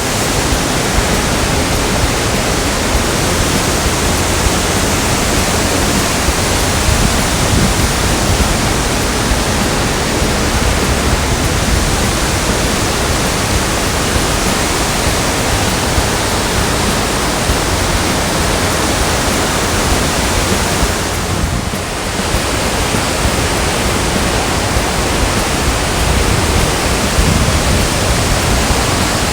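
Ōdaru waterfall of the Kawazu Seven Falls pouring: a loud, steady rush of falling water, dipping briefly about three quarters of the way through.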